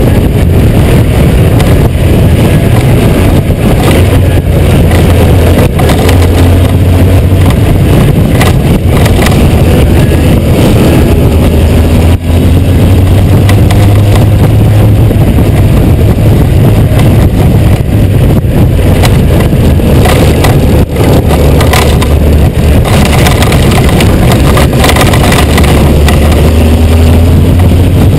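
Honda GoldWing 1500's flat-six engine running on the move, heard under heavy wind buffeting on the microphone. The loud engine note rises and falls in slow pitch glides as the throttle changes.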